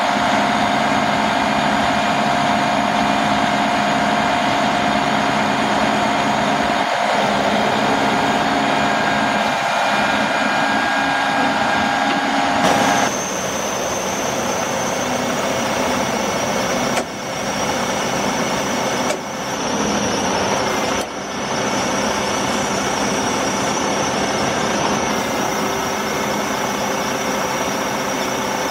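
Freightliner M2 114SD truck's diesel engine running steadily with a whine from the crane's hydraulic system as an outrigger leg is lowered. The whine changes pitch about halfway through, and there are a few brief drops in level after that.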